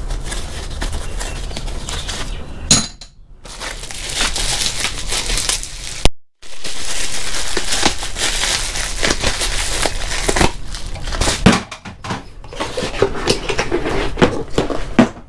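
Plastic bag and foam packaging crinkling and rustling as an IP camera is unwrapped by hand, with light clicks and knocks of the cardboard box being handled. The rustling stops briefly twice, about three and six seconds in.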